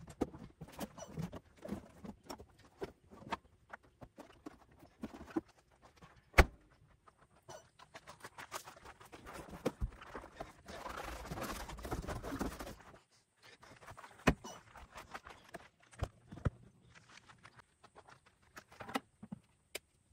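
Scattered knocks, clicks and rattles of hands working around a tractor cab's floor and door, with one sharp knock about six seconds in and a couple of seconds of continuous rustling a little past the middle.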